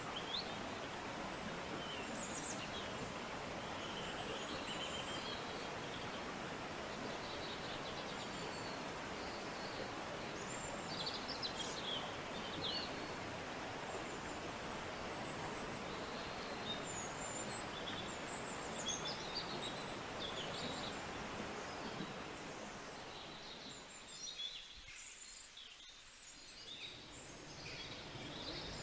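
Birds chirping, many short high calls scattered throughout, over a steady hiss of background noise. The hiss drops away for a few seconds near the end and then returns.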